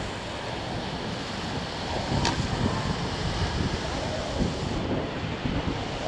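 Rushing whitewater of a river rapid churning around an inflatable raft, with wind buffeting the action camera's microphone. A single brief sharp click about two seconds in.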